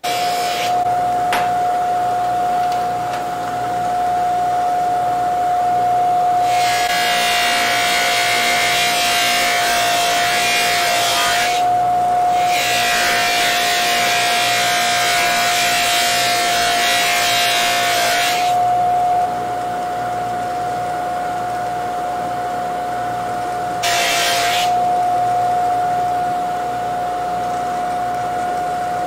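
Bench buffer running with a steady whine. A Cuban-link chain is pressed against its spinning cloth buffing wheel several times, each time giving a rushing hiss, with two long passes of about five seconds each in the middle.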